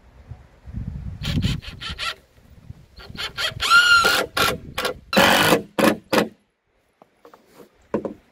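Cordless drill driving deck screws through boards into the wooden joists below: short bursts of motor whir, one rising and falling a little before four seconds in, with sharp clicks and knocks as the screws seat and the drill is moved.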